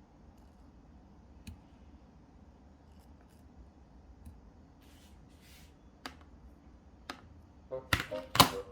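A few sharp clicks over faint room tone, then two loud snaps near the end as music with a steady tune comes in.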